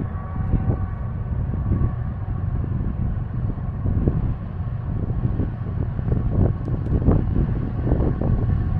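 Wind buffeting the microphone outdoors, a steady low rumble that rises and falls in gusts.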